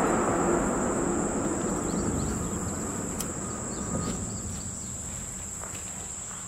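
Insects calling in a steady high-pitched drone, over a low rumbling noise that fades away during the first few seconds. A single sharp click sounds about three seconds in.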